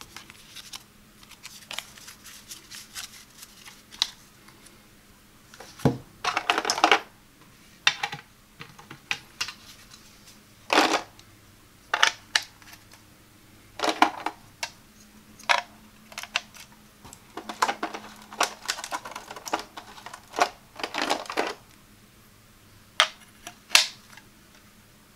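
ThinkFun Circuit Maze hard plastic tiles and grid board being handled: irregular sharp clicks and taps, with a few short bursts of rattling clatter, as pieces are picked from the tray and set into the grid. Lighter card handling near the start.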